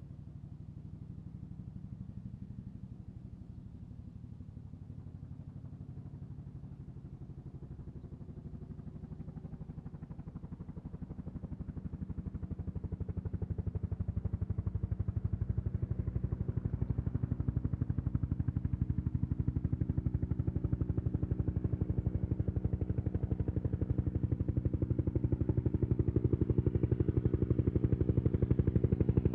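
Bell 212 helicopter approaching, its two-blade main rotor beating in rapid, even pulses over the turbine drone. It grows steadily louder as it nears.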